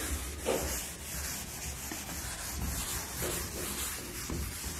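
Chalkboard duster rubbing across a blackboard in repeated strokes, wiping chalk writing off the board.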